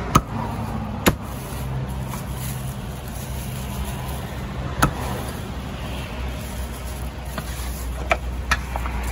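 Meat cleaver chopping a roast chicken on a thick round wooden chopping block: about five sharp chops spaced irregularly, over a steady low rumble of road traffic.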